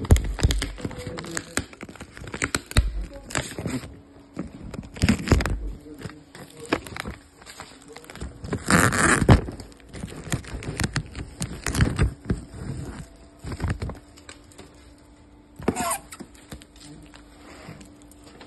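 Plastic-wrapped cardboard parcels being handled: crinkling plastic film and scraping cardboard with many sharp clicks and knocks, and a longer rustle about nine seconds in.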